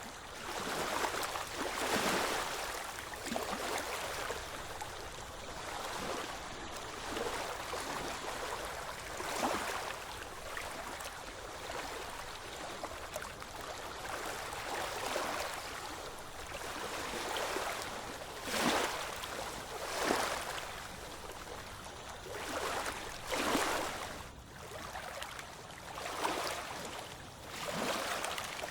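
Ocean waves washing in: a continuous hiss of water that swells every few seconds into short rushes as waves break.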